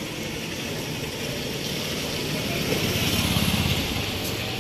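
A motor vehicle engine running steadily, growing louder for about a second around three seconds in.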